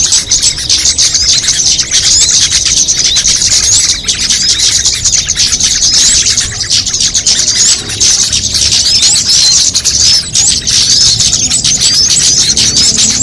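A dense, continuous chorus of small songbirds chirping and twittering, many short high rising notes overlapping without a break, a mixed bird-lure recording of small birds.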